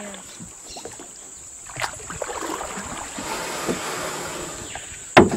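Wooden paddle stroking and splashing through river water beside a wooden boat, with a few sharp knocks and one loud thump near the end.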